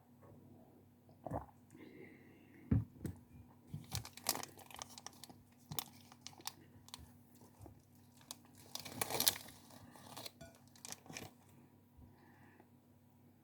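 A candy or snack wrapper crinkling and being torn open, in two denser bouts of crackling about four and nine seconds in, with scattered crunches and chewing between.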